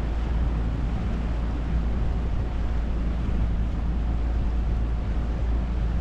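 Small outboard motor running steadily as it drives a dinghy along, with wind rumbling on the microphone.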